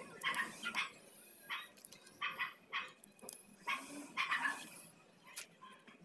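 A dog barking and yipping, a series of short barks spaced irregularly, with light clicks from a plastic bottle being handled.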